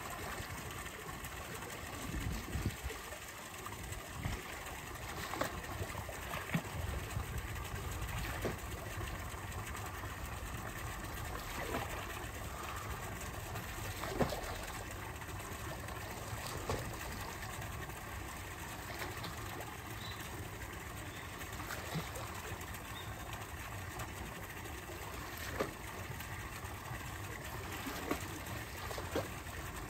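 Steady running water pouring into a penguin pool, with short splashes every few seconds as Humboldt penguins porpoise, leaping out of the water and back in.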